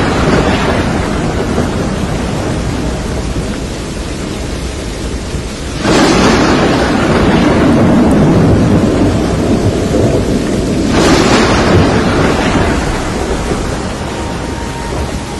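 Thunderstorm: two sudden claps of thunder, about six and eleven seconds in, each rumbling away over several seconds, over steady rain, with the rumble of an earlier clap fading at the start.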